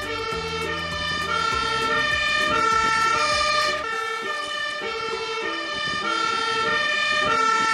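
Fire engine's two-tone siren, alternating steadily between a high and a low note, with the truck's engine running underneath through the first half.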